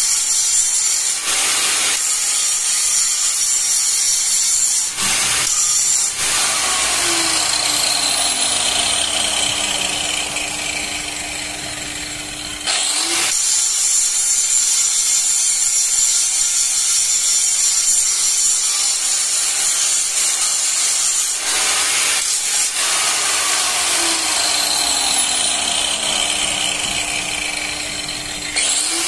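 Electric angle grinder grinding steel channel, a loud high whine with the rasp of the disc on the metal. About six seconds in it is switched off and its whine falls away as the disc coasts down, then it starts up again at about 13 seconds; the same happens again from about 24 seconds, restarting just before the end.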